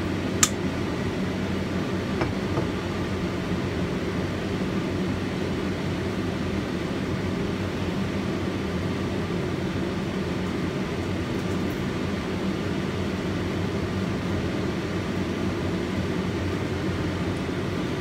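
Kitchen extractor fan running with a steady low hum, with one sharp click about half a second in.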